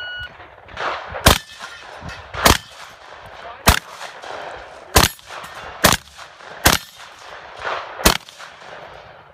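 A shot timer's short electronic beep starts the run, then a shotgun fires seven shots at roughly one-second intervals, with quieter handling noise between the shots.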